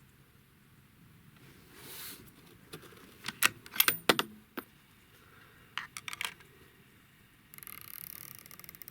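Metallic handling of a rifle and scope: several sharp clacks and clicks in the middle, then near the end a quick, rapid run of fine clicks, like a scope's elevation turret being dialed through many quarter-MOA clicks.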